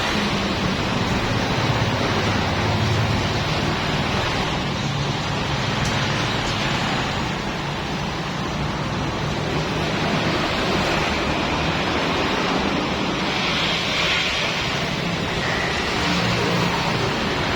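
Steady rushing hiss of water spraying from a washer machine, with a low motor hum underneath.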